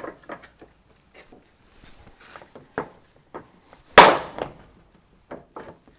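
Small metal clinks and knocks of a jockey wheel and tools being handled at a bench vise, with one loud sharp strike that rings briefly about four seconds in.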